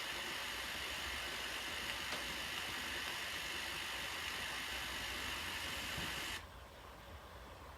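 Steady hiss from VHS tape playback with no programme sound, which cuts off suddenly about six seconds in to a fainter background hiss.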